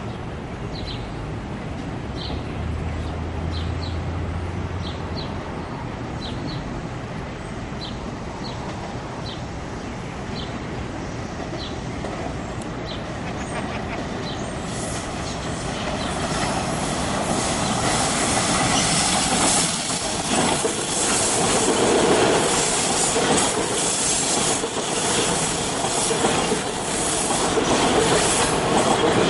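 TTC Yonge line subway train running on curved track: a low, steady rumble for the first half, then rising from about halfway into a louder rumble and clatter of wheels on the rails as it draws near and passes, loudest a few seconds later.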